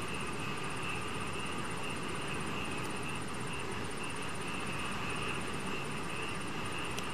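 Night insects trilling steadily in even pulses, one shrill and high, one lower, over a steady low hiss.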